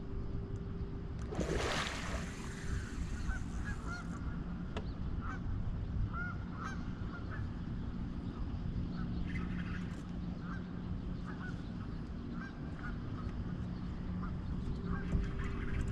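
Geese honking: short calls repeated every second or so over a low steady hum. A rushing noise lasting about two seconds comes about a second and a half in.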